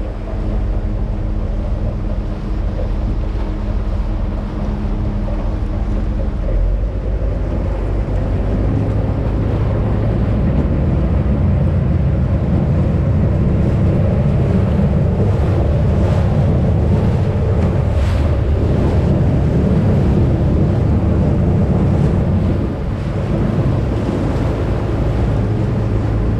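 Venice vaporetto water bus under way: a steady low engine hum under water rushing past the hull, with wind buffeting the microphone. The rush grows louder about a third of the way in and dips briefly near the end.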